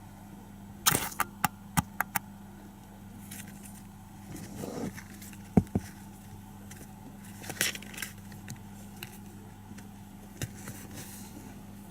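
Kittens playing: scattered sharp taps and knocks with short scratchy rustles, a quick run of clicks about a second in and the loudest knock around the middle, over a steady low hum.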